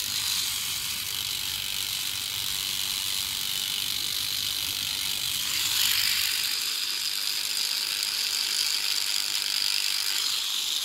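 Battery electric toothbrush buzzing steadily while held against tomato flower clusters to shake loose their pollen, a common way of hand-pollinating tomatoes. The buzz changes about six seconds in as the low rumble drops away.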